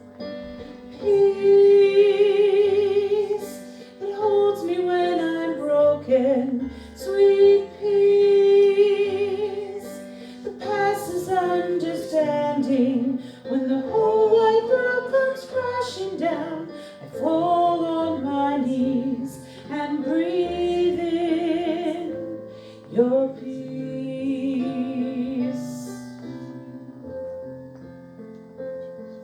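A woman singing a slow worship song in phrases of a few seconds, her long notes wavering with vibrato, over a sustained keyboard accompaniment.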